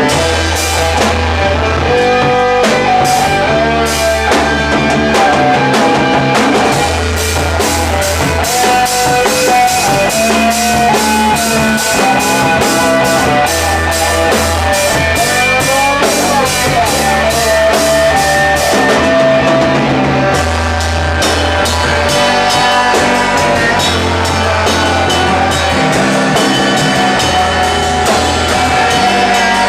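Rock music: a drum kit keeps a steady beat under a bass line and guitar, with a wandering melodic lead line on top.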